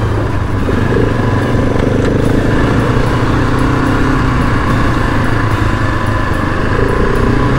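Dirt bike engine running at a fairly steady throttle, heard on board, with wind rushing over the bike.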